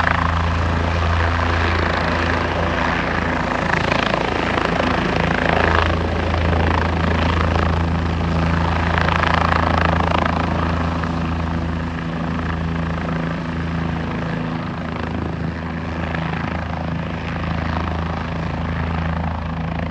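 Helicopter running close by: a steady low rotor hum with a rushing noise over it, going on without a break and easing slightly in level about halfway through.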